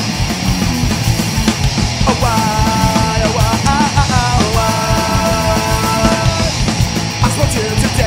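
Studio recording of a pop-punk band playing full tilt at the opening of a song: guitars and drums with a steady driving beat. From about two seconds in, a melody of held notes rides on top for about four seconds.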